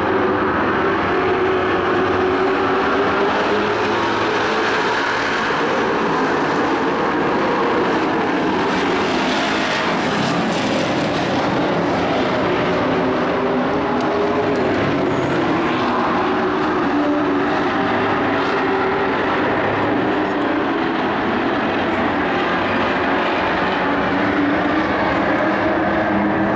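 Dirt-track race trucks' engines running at racing speed, several engines overlapping in a steady, loud drone whose pitches waver up and down.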